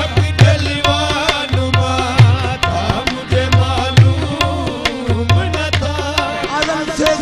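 Instrumental passage of a sufiana kalaam (qawwali-style Sufi devotional song): hand drums keep a quick steady beat with deep bass strokes under a wavering melody line.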